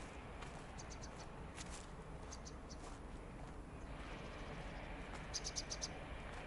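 Quiet outdoor background hiss with scattered short, high chirps, ending in a quick run of about six chirps near the end.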